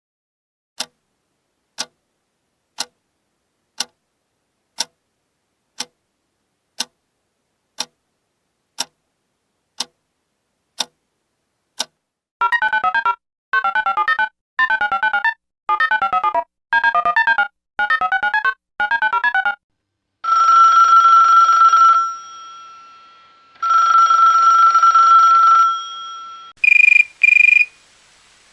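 A sequence of telephone sound effects: about a dozen single clicks a second apart, then seven short warbling electronic phone rings, two longer steady ring tones, and quick double beeps near the end.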